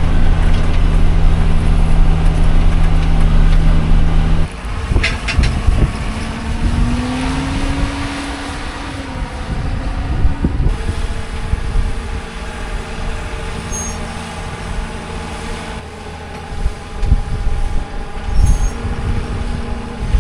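A heavy vehicle's engine running loudly and steadily, then cutting off abruptly about four and a half seconds in. A quieter, changing engine and machine sound follows, with a few knocks and a slow rise in pitch, then settles into a steadier hum.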